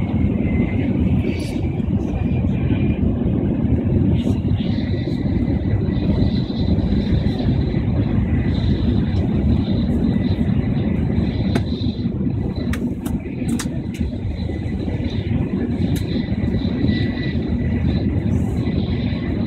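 Tokaido Shinkansen train running at speed, heard from inside the passenger car: a steady low rumble of wheels and rushing air, with a few short clicks a little past the middle.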